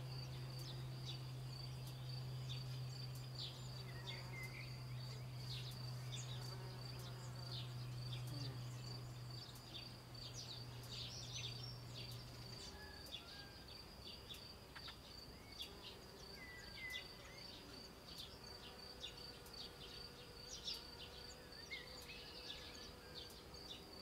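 A steady, high-pitched pulsing insect trill, with scattered sharp ticks and a few faint short chirps. A low steady hum underneath stops about halfway through.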